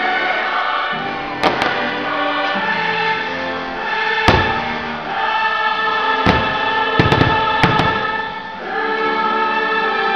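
Fireworks show soundtrack with a choir singing, cut by the bangs of fireworks bursting: a pair about a second and a half in, a sharper one near four seconds, and a quick cluster of four or five around seven to eight seconds.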